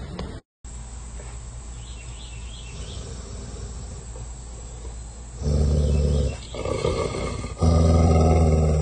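Yellow Labrador retriever growling at its own reflection in a mirror: two long, low growls, the second starting about a second after the first ends and lasting a little longer.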